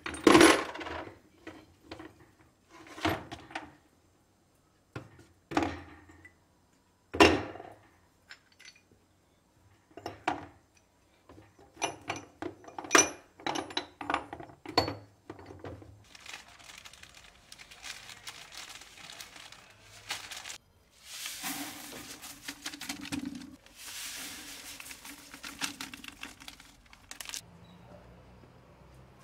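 Rusty parts of an antique grape crusher, its fluted rollers and small metal pieces, set down one by one into a plastic storage box: a string of separate knocks and metallic clinks. In the second half comes a rough rustling noise lasting about ten seconds.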